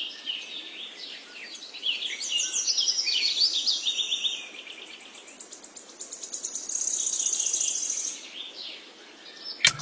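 Birds chirping and trilling in quick repeated phrases over a faint hiss, with a higher, even trill late on that could be a bird or an insect.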